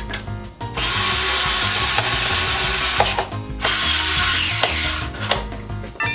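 Power drill-driver running in two bursts, about two and a half seconds and then about a second long, spinning down at the end of the second, as fasteners are driven on a motorcycle's rear frame.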